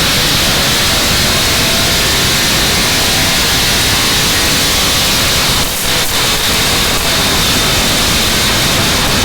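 Chevy small-block V8 running hard under load on a chassis dyno, a loud, dense roar that climbs slowly in pitch, with a brief dip in level just before six seconds in.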